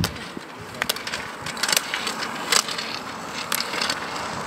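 Skate roller skis rolling on asphalt with a steady wheel hiss, and the ski poles' tips striking the tarmac in sharp clicks about once a second as the skier poles past.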